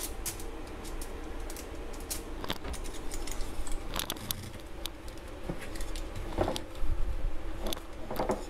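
Scattered light clicks and crinkles of hands at work on cookie dough and a foil-lined baking pan, over a low steady hum, with louder knocks about six and a half and eight seconds in.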